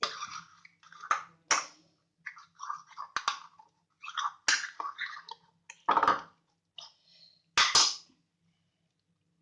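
Homemade slime of liquid silicone and laundry detergent being squeezed and kneaded by hand: a run of irregular wet squelches and sharp sticky clicks that stops about a second before the end.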